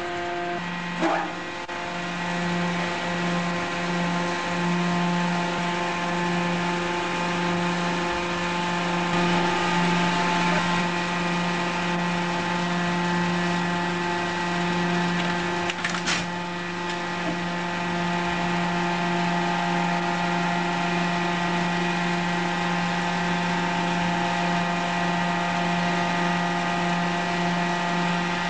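Mobile scrap baler-press 1719A running with a steady, even mechanical drone while its hydraulic loading crane grips and lifts a car body. A single sharp clank comes about halfway through.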